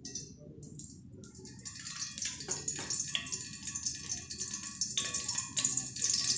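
Cooking oil heating in a kadhai on a gas flame, starting to crackle and sizzle with small spits, growing louder as the oil gets hot.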